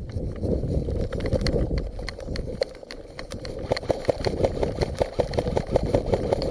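Airsoft guns firing in quick, irregular shots, heard as a run of sharp clicks and pops that comes thicker and louder from about halfway through, over a low rumble of movement against the microphone.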